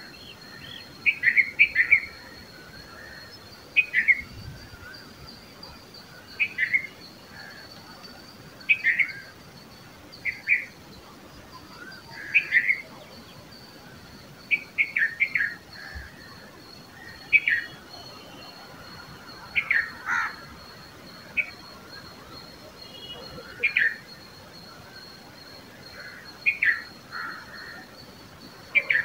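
Red-vented bulbul calling: short chirps, singly or in quick pairs, repeated every second or two, over a thin steady high tone.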